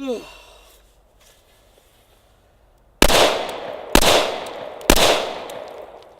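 Three shots from a Glock 21 Gen 4 .45 ACP pistol, about a second apart, starting about three seconds in, each trailing off with echo. A brief falling-pitched sound comes right at the start.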